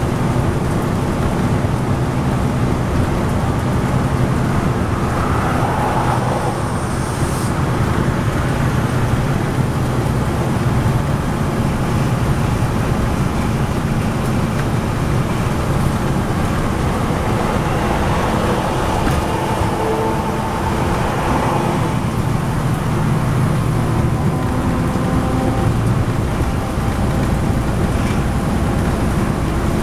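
Cabin of a 2010 NABI 40-SFW transit bus cruising at highway speed: a steady low drone from its Cummins ISL9 diesel engine, mixed with tyre and road noise.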